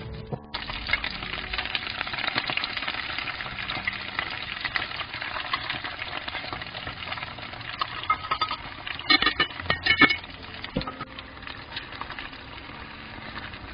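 Green onions sizzling in hot cooking oil in a frying pan, a dense steady crackle as batter is poured over them. A few louder sharp clicks come about nine to ten seconds in, and the sizzle softens near the end.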